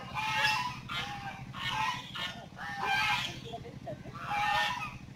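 Geese honking: four loud calls, each under a second long, spaced a little over a second apart, over a steady low hum.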